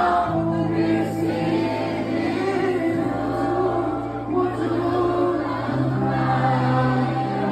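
Live band performing a Nepali song: electric guitar and bass notes under many voices singing the melody together.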